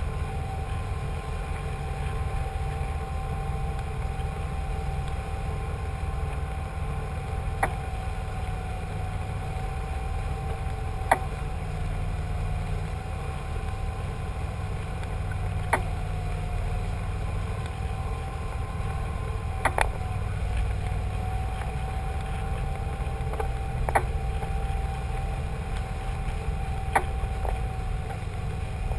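A cruiser's engine running steadily under way, a low rumble with a steady whine above it. Sharp clicks come every few seconds.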